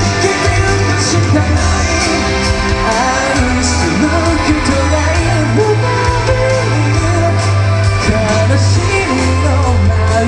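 Live rock band playing with a singer: a sustained bass line, a regular drum beat and a sung melody, loud.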